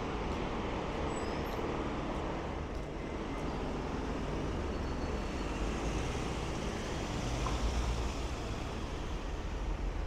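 Street traffic: the engines of a lorry, black cabs and cars in a slow queue running close by, a steady low rumble.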